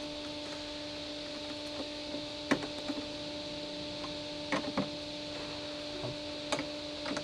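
A steady electrical hum under a few short, separate clicks and knocks from gloved hands handling battery cables and plastic connectors on a Tesla battery pack.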